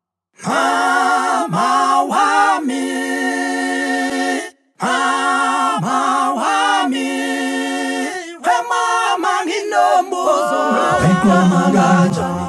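Zulu a cappella vocal group singing unaccompanied in close harmony, with long held chords and wavering vibrato. The singing stops dead briefly twice, and low bass voices come in near the end.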